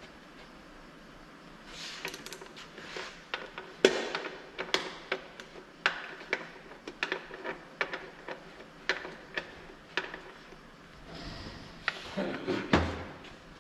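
Steel gearbox parts clicking and knocking against each other and the cast casing as a ZF 16S 221 truck gearbox is assembled by hand, with the shift-fork parts being fitted. Uneven sharp clinks, the loudest about four seconds in, and a longer scraping slide near the end.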